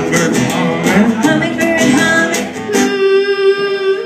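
Live band playing acoustic and electric guitars while children's voices make jungle-animal noises into a microphone, imitating howling monkeys. Near the end one voice holds a long, steady howl.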